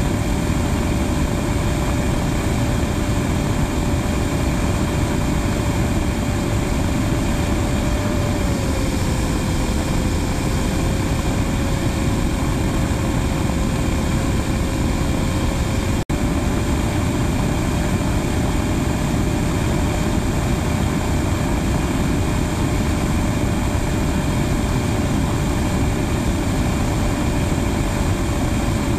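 Steady rush of wind and jet engine noise heard from a camera mounted on the underside of a Blue Angels F/A-18 Hornet in formation flight, with a steady whine that dips slightly in pitch about a third of the way in. The sound cuts out for an instant a little past halfway.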